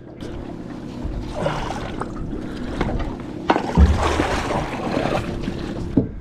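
Water sloshing and splashing against the side of a small boat, rising to its loudest around four seconds in, with a few knocks on the hull and one deep thump.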